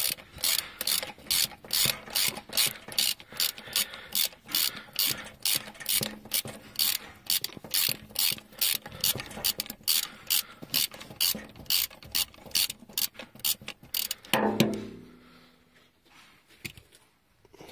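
Socket ratchet wrench tightening a wheel nut: a quick, even clicking of the pawl, about three clicks a second, for about fourteen seconds. A single louder thump comes at the end.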